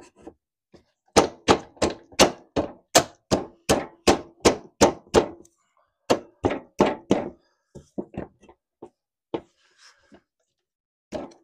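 Rapid metal-on-metal knocks: vise grips used as a hammer, tapping the hinge rod of a Kubota zero-turn mower's discharge chute into its bracket. Two runs of strikes about three a second, the first lasting about four seconds, then a few lighter taps.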